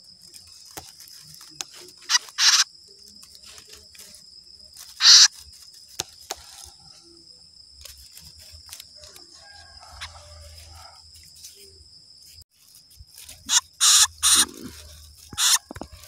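Nearly fledged chicks of a small brown songbird squawking in their nest, short harsh calls: two about two seconds in, a loud one about five seconds in, and a run of four near the end.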